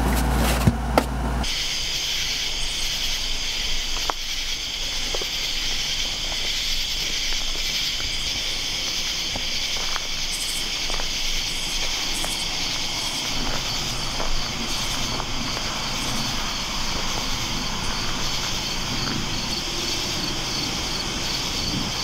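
Crickets and other night insects chirping in a steady high-pitched chorus, with a faint regular pulsing in it. A low hum and a couple of knocks come just before it starts, about a second and a half in.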